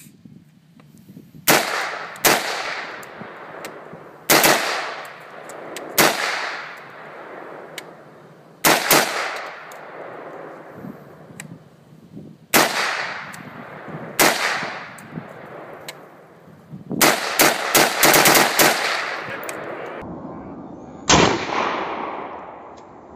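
AR-15 rifle fired semi-automatically: about fifteen shots at an uneven pace, each followed by a long fading echo. Most come a second or two apart, with a rapid string of six or seven shots in quick succession about three-quarters of the way through.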